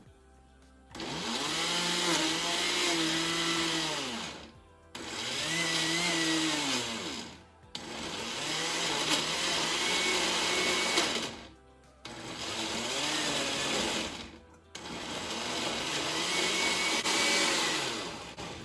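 Oster countertop blender run in five short bursts, its motor pitch rising as each run spins up and dropping as it stops, chopping frozen green smoothie cubes, fruit and spinach into a smooth purée.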